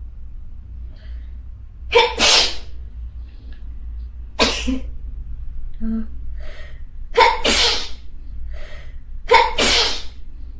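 A person having a sneezing fit: four sneezes, each two to three seconds apart, with short breaths and gasps between them.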